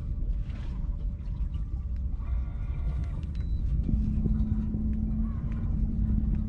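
Steady low rumble of a small fishing boat's motor, with a steady hum that joins about four seconds in.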